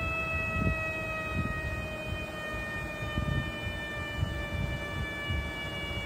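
Steady whine of a vacuum leak detector's pump, with several overtones above it, drifting slowly lower in pitch. Irregular low rumbling sits underneath.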